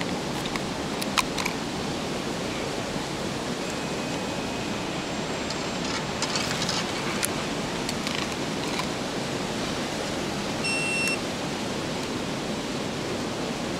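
Steady rushing background noise with a few faint clicks, and a short electronic beep about eleven seconds in.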